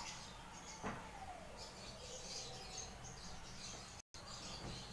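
Faint bird chirps in the background, with one soft click about a second in.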